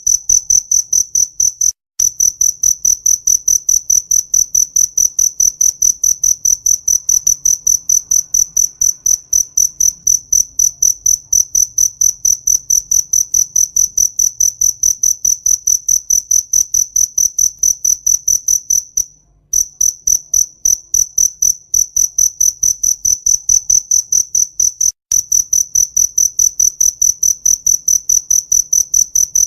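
Cricket chirping: a high-pitched, rapidly pulsing song, several chirps a second, with brief breaks a few times.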